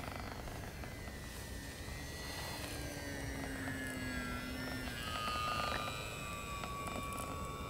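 Small FPV model plane's propeller motor whining in flight overhead, its pitch sliding slowly downward as it flies past, over a steady low rumble.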